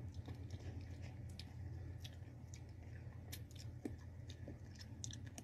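A person eating instant cup ramen noodles, faintly chewing and slurping, heard as a scatter of short clicks and smacks.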